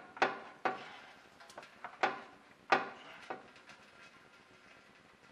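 Metal transmission oil pan of a 2012 Chevrolet Silverado knocking against the truck's underside as it is worked loose by hand: about five sharp clanks with a short ring, unevenly spaced, the loudest near the middle, as the pan catches on a bracket.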